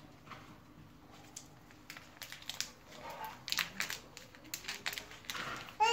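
Foil Pokémon card booster pack being torn open and crinkled in a child's hands: a scatter of short crackles and rustles, busiest in the middle. A child's voice briefly comes in right at the end.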